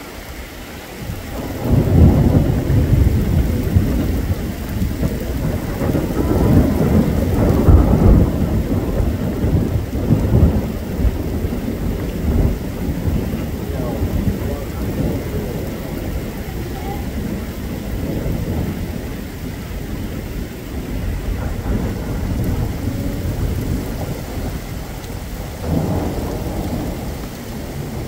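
Rain falling steadily. A long roll of thunder starts about two seconds in, swells twice and rumbles for several seconds before fading, and a shorter rumble comes near the end.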